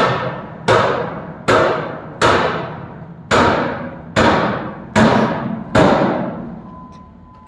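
A series of about ten loud, booming impacts a little under a second apart, each ringing out and fading before the next; they stop about six seconds in.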